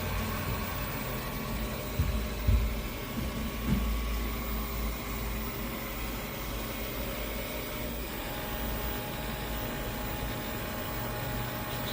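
A steady machine hum with a few low thumps about two to four seconds in.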